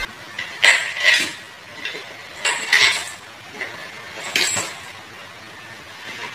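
A cat sliding down bare wooden stairs on its back, its body knocking and scraping against the step edges. There are a few separate short knocks, a second or two apart.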